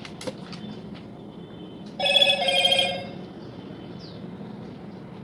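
An electronic ringing tone, warbling and about a second long in two parts, sounds about two seconds in, over a faint steady hum and a few small clicks near the start.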